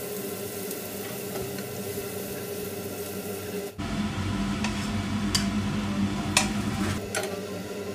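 Sautéed onion and red bell pepper sizzling in a frying pan as a slotted spatula scrapes them out, with a few sharp clicks of the spatula against the pan in the second half.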